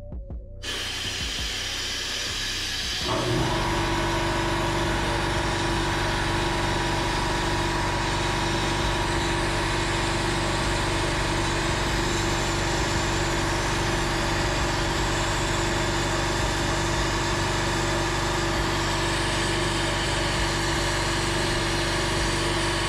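Blast cabinet gun spraying abrasive media onto an intake balance tube: a steady air-and-grit hiss that starts just under a second in. About three seconds in a machine motor starts and runs steadily beneath it.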